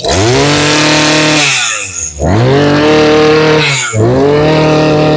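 Makita MEM201ST brush cutter's 20 cc two-stroke engine, just started, revved up three times on the throttle, each rev held for about a second and a half before the pitch drops back.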